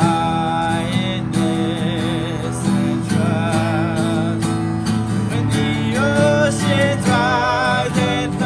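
Worship song played on acoustic guitar, with a voice singing held, wavering notes over the chords.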